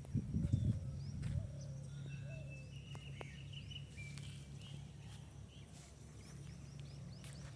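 Small birds chirping and calling faintly in scattered short notes and brief trills, with rustling in the first second or so and a steady low hum underneath.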